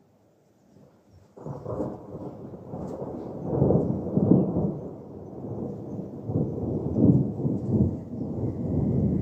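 Thunder: a sudden start about a second and a half in, then a long rolling rumble with several louder swells.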